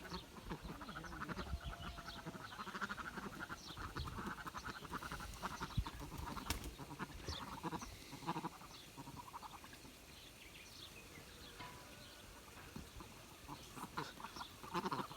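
A flock of sheep bleating, many calls overlapping, thinning out after about nine seconds.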